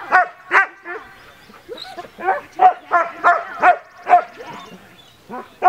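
German shepherd barking in short, sharp barks: two near the start, then a quick run of about eight barks in the middle, and one more near the end.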